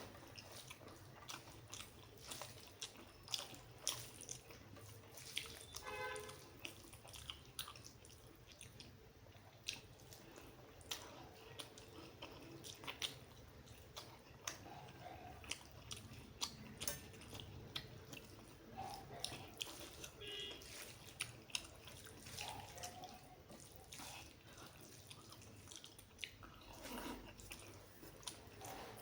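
Close-up wet chewing and mouth smacking while eating rice with egg curry: irregular sharp clicks and squelches, several a second, with a couple of brief pitched throat sounds.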